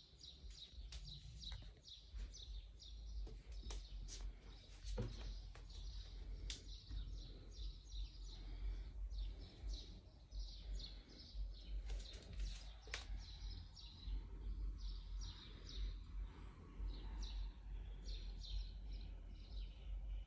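Small birds chirping in quick repeated bursts against steady rainfall, with a few sharp ticks from drops and a low rumble underneath.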